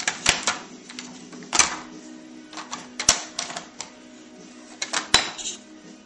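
Hard plastic knocks and clatter of a toy road roller being banged and set down on a plastic toy bin, in irregular clusters of sharp knocks.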